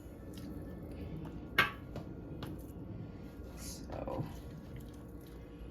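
Quiet kitchen handling as seasoned chops are laid by hand into a baking pan, with one sharp knock on the pan about a second and a half in and a softer bump near the end.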